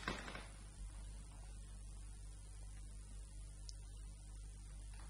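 Steady low electrical mains hum, with a short noisy burst right at the start.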